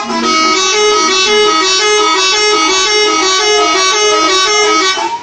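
Indonesian bus 'telolet' horn, a multi-tone horn playing a quick tune of short stepping notes over and over.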